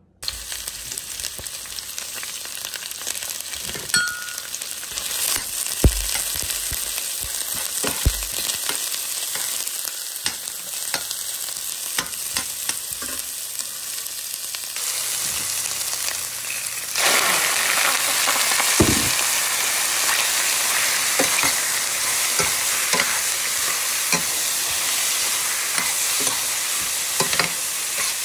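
Sliced onions sizzling in hot oil in a stainless-steel pan, stirred with a metal spoon that clicks against the pan. About 17 seconds in the sizzling gets suddenly louder and fuller, with octopus pieces now frying and steaming in the pan.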